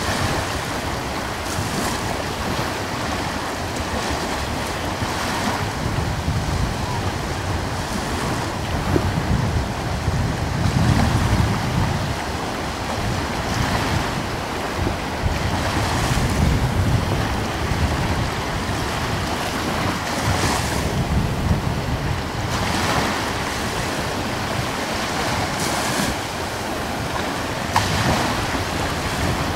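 Strong, gusty wind blowing across the microphone: a steady rushing noise that swells and eases in gusts every few seconds.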